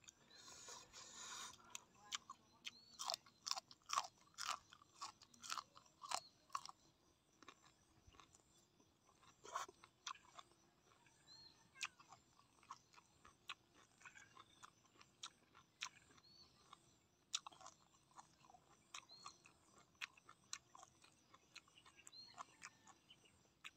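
A person chewing a mouthful of food: irregular sharp, wet clicks of the mouth, coming thick and fast for the first several seconds, then sparser.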